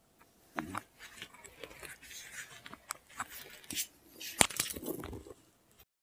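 Faint rustling with scattered small clicks, and one sharper click about four and a half seconds in.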